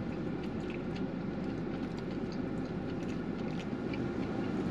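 Steady low background rumble, with a few faint light clicks and taps.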